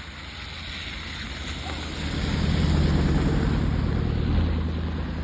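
A motor vehicle engine going past: a low hum grows loud about two seconds in and fades after about four and a half seconds, over a steady hiss.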